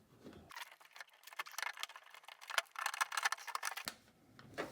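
Rapid plastic clicking, rattling and scraping as hands work inside a car door, unclipping and maneuvering the door lock actuator out through the opening in the inner door panel. The clatter starts about half a second in and stops shortly before the end.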